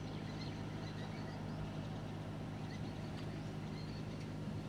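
Faint steady low hum over a light background hiss: room tone.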